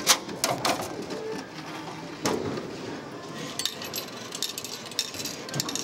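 Plastic soda bottle being taken out of a Royal Vision 500 glass-front vending machine's delivery bin: a string of sharp clicks and knocks, the loudest right at the start and a quicker cluster near the end.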